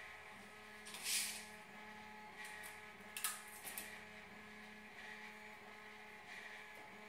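A tape measure being pulled out and handled on a plywood board: a brief swish about a second in, then a few sharp clicks around three seconds in, over a steady low hum.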